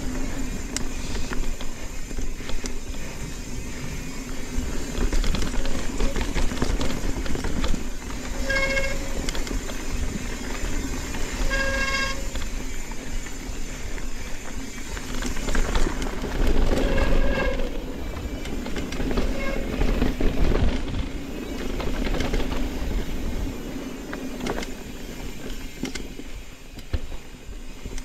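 Mountain bike riding down a dirt singletrack: a steady rush of tyre and wind noise with a low hum, broken by several short, high squeals of the brakes through the middle of the stretch.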